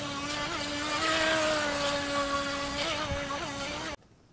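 SGILE Pentium RC racing speedboat's small electric motor running at speed: a steady high whine with the hiss of water spray, its pitch wavering slightly. It cuts off suddenly about four seconds in.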